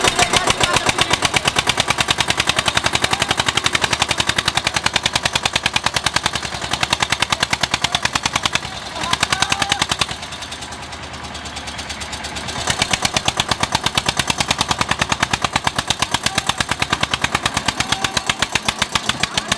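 Eicher tractor's diesel engine chugging with rapid, even exhaust beats, labouring under load as it hauls a sand-laden trolley up out of a pit. The beats drop in level for about two seconds midway, then come back up.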